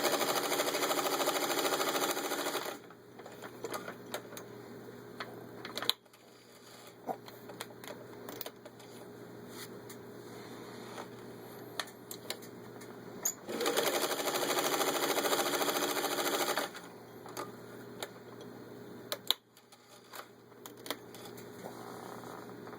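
Vintage Singer 301A sewing machine running at speed as it stitches through six layers of denim, in two runs of about three seconds each, the second starting about 13 seconds in. Quieter scattered clicks come in the pauses between and after the runs.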